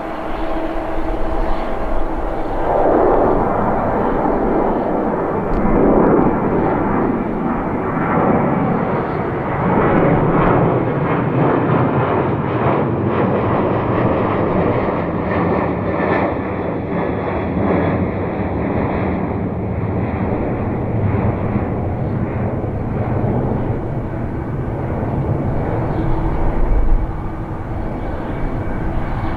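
Airliner engines running steadily as aircraft taxi, a continuous rushing noise with a low steady hum. It swells louder from about three to twelve seconds in.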